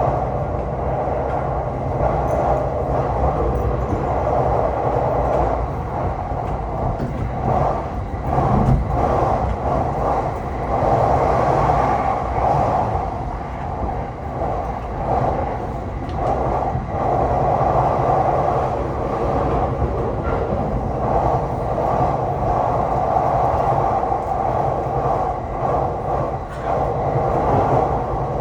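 Tokaido Line commuter train running at speed, heard from inside the car: a steady rumble of wheels on the track.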